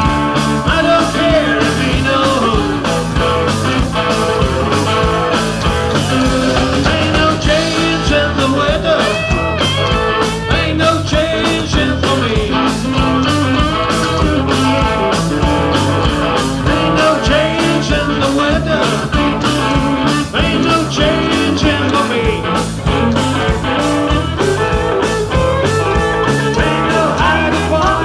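Live southern rock band playing: electric guitars, bass and drum kit.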